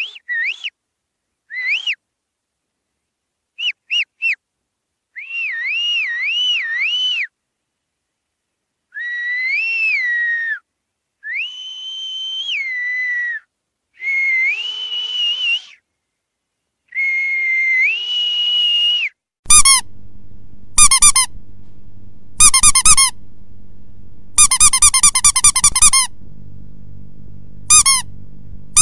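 A whistle blown in a series of clear notes: short blips, a warbling trill, notes that rise and fall, and longer held notes, with pauses between. About two-thirds of the way in it gives way to a squeaky dog toy squeezed over and over, with single squeaks and a fast run of them, louder than the whistling, over a steady low hum.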